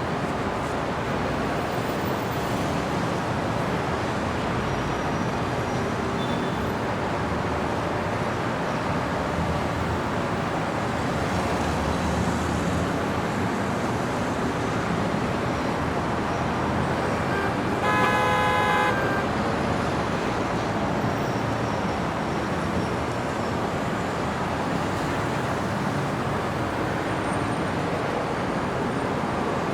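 Steady city street traffic noise, with a single car horn honk lasting about a second a little past the middle.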